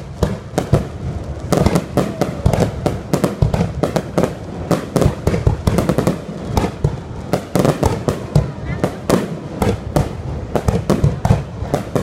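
Fireworks display: shells launching and bursting in a rapid, unbroken run of sharp bangs and crackles, several a second.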